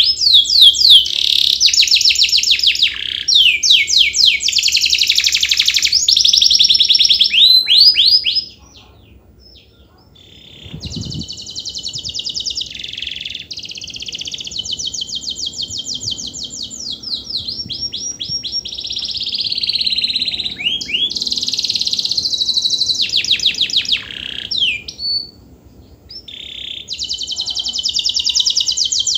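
Domestic canary singing a long song of fast, rolling trills and chirps. The song breaks off briefly twice, once about eight seconds in and again near twenty-five seconds, and there is a soft low thump at about eleven seconds.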